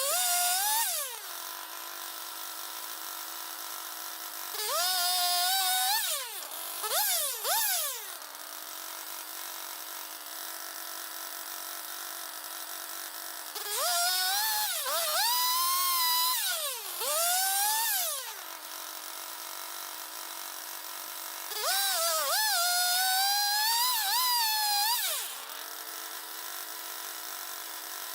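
M6 Turbosawmill swing-blade sawmill engine idling steadily, revving up four times for a few seconds each. On each rev the pitch climbs, sags and recovers as the blade is worked through the log, then drops back to idle.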